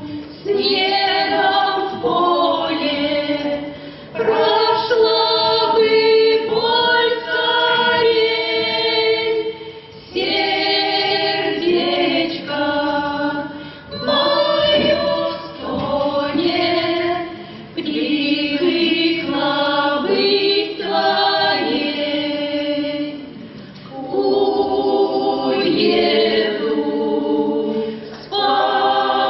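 Russian folk ensemble choir singing a song in several voices, in sung phrases with short breaks between them.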